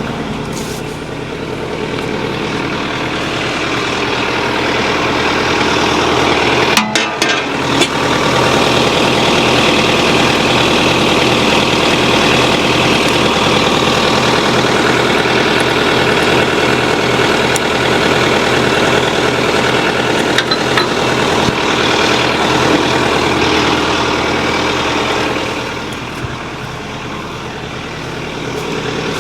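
Tractor engine idling steadily, with a continuous low hum.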